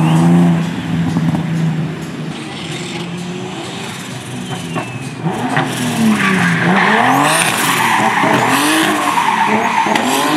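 Drift cars sliding with engines revving and tyres squealing. A steady engine note opens, and from about halfway through the revs rise and fall rapidly over louder tyre squeal.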